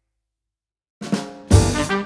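Silence, then background music starts about a second in: a band tune with brass and drums, coming in fully with a loud hit half a second later.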